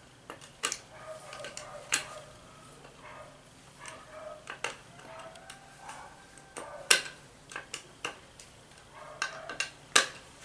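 Metal pliers clicking and scraping against a metal bicycle valve fitted into a wooden stick, crimping it in place. The sharp metallic clicks are irregular, with the loudest about seven seconds and ten seconds in.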